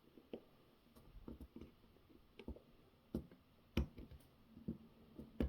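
Faint, scattered clicks and taps of small lock parts being handled and pried while a seized Audi/VW door lock cylinder is taken apart, the sharpest clicks near the end.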